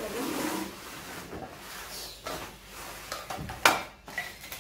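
Cardboard box and packaging being handled: rustling and rubbing, with small knocks and one sharp, loud knock a little over three and a half seconds in.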